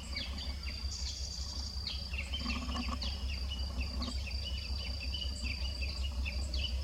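Outdoor insect chorus: a steady high trill, with many short falling chirps repeating throughout and a steady low rumble underneath.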